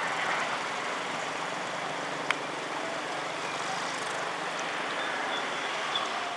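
Steady rushing noise of a vehicle passing close by, with one sharp click about two seconds in.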